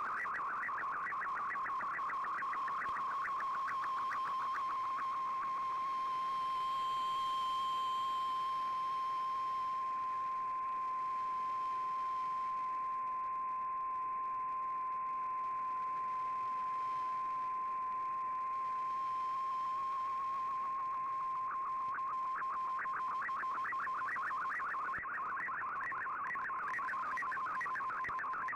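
Shortwave radio receiving an Fldigi MFSK picture transmission: a data tone around 1 kHz over a background of hiss. It warbles rapidly at first, settles into one steady tone for much of the time, then warbles again from near the two-thirds mark.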